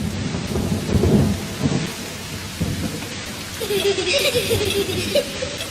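Rain-like noise with low rumbling like thunder. From about the middle to near the end, a wavering tone sounds over it.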